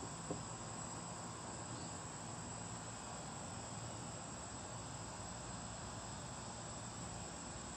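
Faint, steady outdoor ambience: a chorus of crickets chirping without a break.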